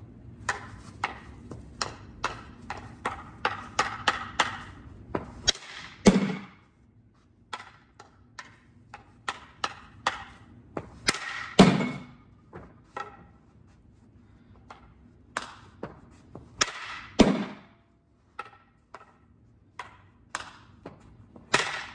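Field hockey stick tapping a ball up in the air over and over in quick light ticks, a few a second, while the ball is kept aloft, then a louder crack as the ball is hit in a shot. The cycle of taps and shot repeats four times.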